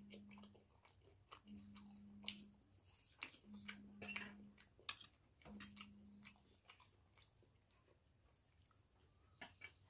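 Quiet, close-up chewing and wet mouth clicks from someone eating soft luchi with ghugni, with a few sharper clicks about four to five seconds in.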